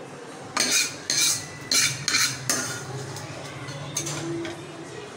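A metal spoon scraping cooked mash dal out of a karahi and knocking against the pan. There are about five quick scrapes in the first half, then one fainter scrape a little later.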